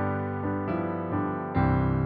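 Slow piano music: held notes and chords changing every half second or so, with a new, fuller chord and deeper bass coming in about one and a half seconds in.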